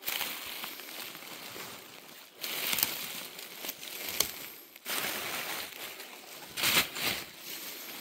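Footsteps crunching and rustling through thick, dry fallen leaves, in an uneven series of crunchy steps.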